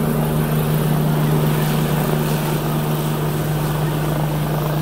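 Helicopter climbing away overhead after lift-off: the steady, loud drone of its rotor and turbine engine, with a strong low hum held throughout.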